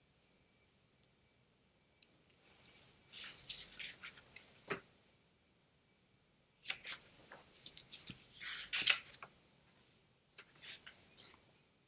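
Faint clicking and rustling handling noise at a computer desk, in three short clusters about three, seven and ten seconds in.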